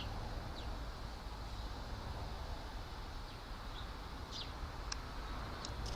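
Faint, short bird chirps, scattered and a little more frequent in the second half, over a steady low outdoor rumble.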